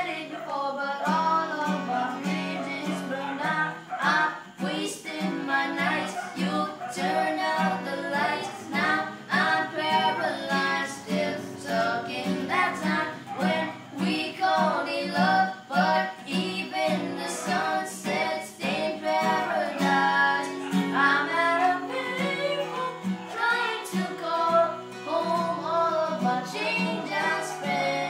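Singing to acoustic guitar accompaniment: a voice carries the melody over steady plucked chords.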